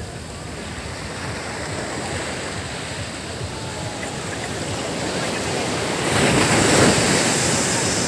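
Sea surf washing onto a sandy beach, with a wave breaking and swelling louder about six seconds in.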